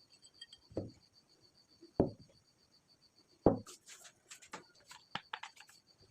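Objects being handled and set down on a hard work surface: three dull knocks about a second and a half apart, then a run of light clicks and taps.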